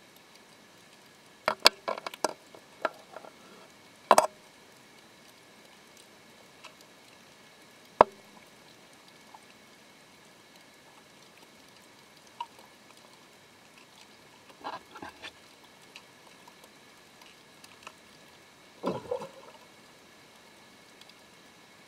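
Underwater recording: scattered sharp clicks and knocks, the kind a camera housing picks up as it is handled, over a faint steady high whine. There is a quick cluster of knocks about two seconds in, single sharp clicks near four and eight seconds, and short bunches of knocks around fifteen and nineteen seconds.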